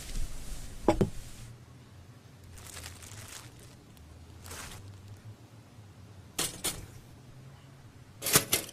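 A few scattered sharp knocks and clicks with quiet stretches between, one strong knock about a second in, and a quick cluster of knocks near the end.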